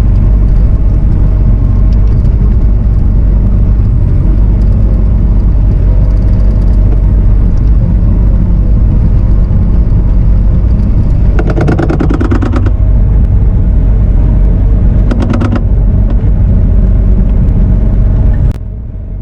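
Diesel engine of Bobcat heavy equipment running steadily and loud. Two short bursts of rapid clattering come through it past the middle, and the engine noise drops off sharply just before the end.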